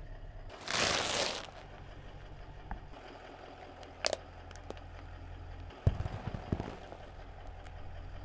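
Car tyre rolling over and crushing small things on pavement, with the car's engine idling low underneath: a loud crunching rush about a second in, then sharp cracks and crackling around the sixth second.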